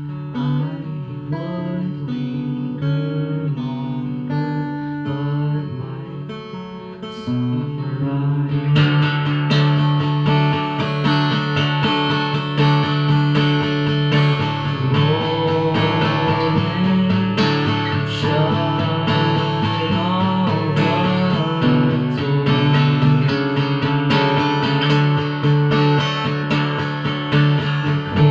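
Solo acoustic guitar played live, picked softly at first, then strummed louder and fuller from about nine seconds in, with a man singing over it.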